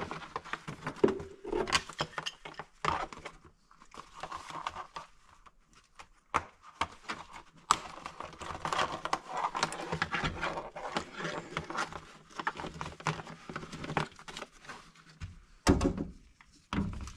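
Plastic C-pillar trim panel of a 2015+ Honda Fit being worked off its push-in clips: irregular clicks, knocks and rustling of handled plastic, with two louder thumps near the end.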